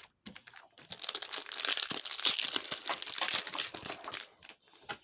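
Foil booster pack wrapper of a Yu-Gi-Oh card pack crinkling as it is torn open: a dense crackle of about three and a half seconds that starts about a second in.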